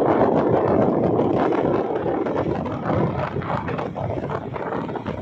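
Steady rushing of wind on the microphone mixed with the running noise of a boat and churning water alongside, easing a little about two seconds in.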